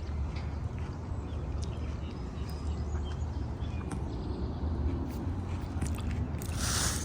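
Salad being chewed close to the microphone, with faint crisp clicks of biting over a steady low rumble. A louder rustle comes near the end.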